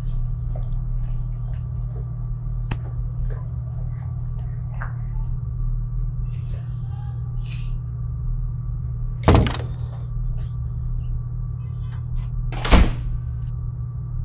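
Steel grille lift gate sliding shut with a loud metallic clank, then a second loud clank about three seconds later, over a steady low hum.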